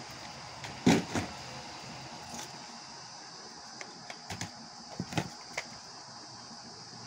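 Shrink-wrapped plastic audio cassette cases being handled, set down and picked up from a stack, giving a handful of sharp clicks and clacks. The loudest comes about a second in, and a cluster of smaller ones follows about four to five and a half seconds in.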